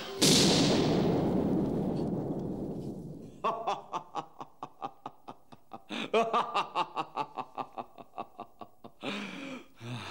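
A sudden loud noise effect that dies away over about three seconds, then a person's long, rhythmic mocking laugh, about five 'ha's a second, from about three and a half seconds in.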